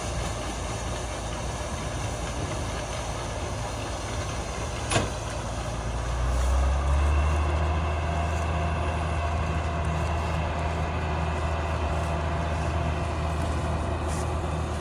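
Combine harvester's diesel engine running steadily, with a single sharp click about five seconds in. About a second later a deeper, louder engine note comes in and holds.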